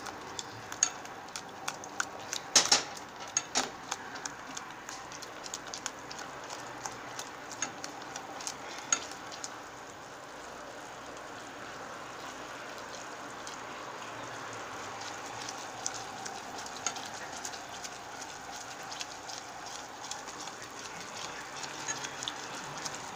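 A spoon stirring a hot gelatin and coconut-oil mixture in a pot on the stove, knocking and scraping against the pot in a run of sharp clicks over the first ten seconds, the loudest about two and a half seconds in. After that the simmering mixture hisses steadily, with only an occasional tick.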